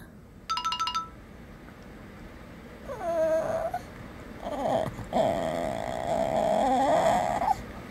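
Shih tzu whining and grumbling in drawn-out moans, begging for its food: a short whine about three seconds in, then a longer wavering moan of about three seconds. A brief electronic beep sounds about half a second in.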